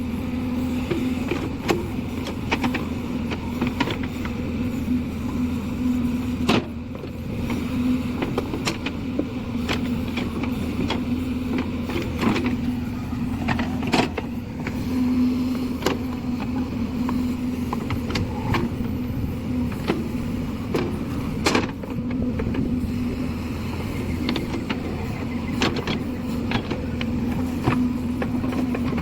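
JCB 3DX backhoe loader's diesel engine running steadily at work, with sharp knocks now and then, the loudest about a quarter, halfway and three quarters of the way through.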